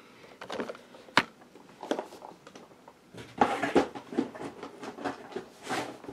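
Boxed action figures being handled and set on a table: irregular knocks, taps and rustles of cardboard window boxes with plastic fronts, with a sharp tap about a second in and a denser clatter of knocks a little past the halfway point.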